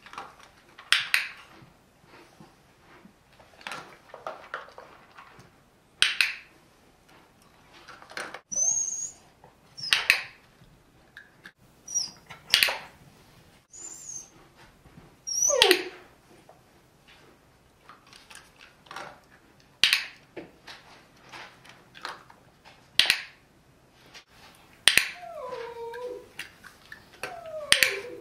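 Single sharp clicks every two to three seconds, a clicker marking the moments the dog gets it right during a shaping session. Near the end a poodle gives a couple of short whines that fall in pitch.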